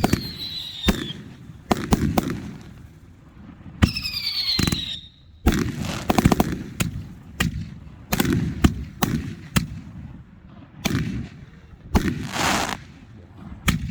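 Fireworks going off: a quick, irregular string of sharp bangs, with two high falling whistles from whistling fireworks near the start and about four seconds in, and a short crackling hiss near the end.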